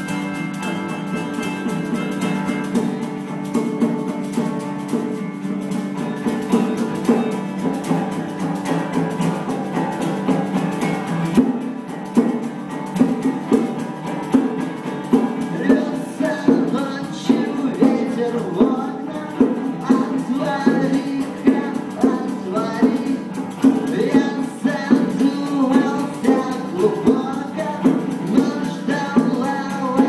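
Live acoustic trio playing instrumentally: a strummed acoustic guitar with harmonica chords held over it. About eleven seconds in, hand-played bongos join with a steady beat.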